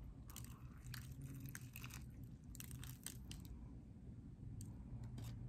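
A person biting into and chewing a bacon, egg and cheese breakfast sandwich, with crunchy, crackly mouth sounds in two clusters, one starting shortly after the bite and another around two and a half seconds in. A faint low hum runs underneath.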